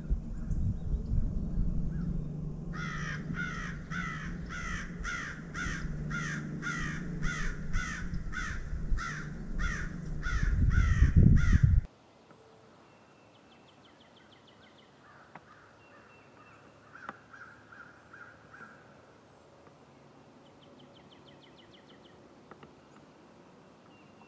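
A crow cawing in a long run of about seventeen harsh, evenly spaced caws, roughly two a second, over a low rumble on the microphone. The sound cuts off abruptly about halfway, leaving only faint high chirps of small birds.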